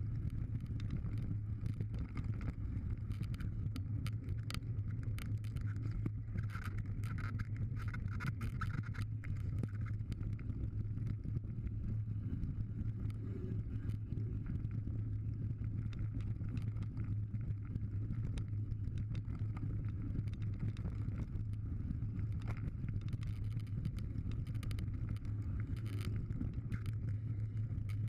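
Mountain bike descending a gravel forest trail at speed, heard from a bike-mounted action camera: a steady low rumble of wind and tyres, with frequent small knocks and rattles as the bike runs over the rough surface.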